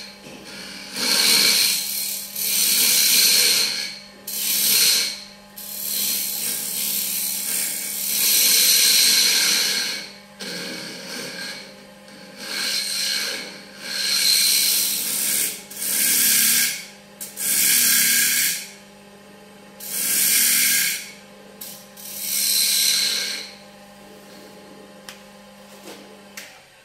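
Wood lathe running with a steady hum while a walnut plate blank is worked on it in repeated passes, each a loud scraping hiss lasting a second or two with short pauses between. The motor hum stops just before the end.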